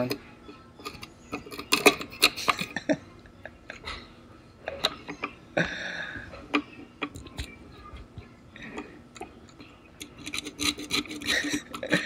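Scissor blades scraping and picking at hardened black glue on a studio monitor's amplifier circuit board: irregular metal-on-board scratching strokes with small clicks, a longer rasp about six seconds in and more scraping near the end.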